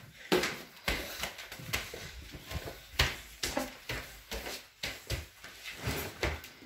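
Irregular footsteps and light knocks on a hard floor as people walk from room to room, with a few sharper thumps.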